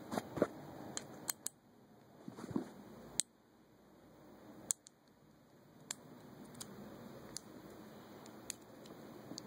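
Faint handling noise with a dozen or so small sharp clicks at uneven intervals, as a fidget spinner's small bearing is fitted back into its body.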